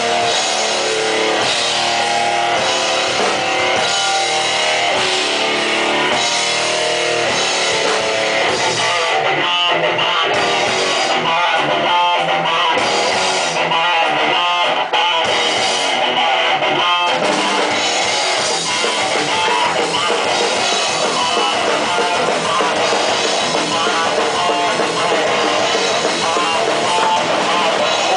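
Live punk rock band playing loud, with electric guitar, bass and drum kit, heard through a camera microphone in the crowd. About a third of the way in, the band plays a stretch of hard accented hits before running on steadily.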